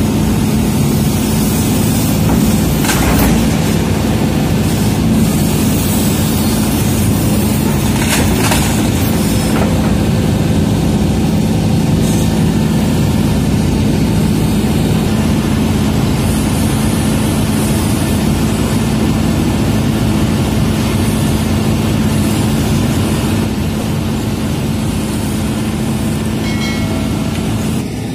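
Hitachi hydraulic excavator's diesel engine running steadily at working revs as the machine tracks over slippery mud, heard from the cab, with a few sharp knocks about three and eight seconds in.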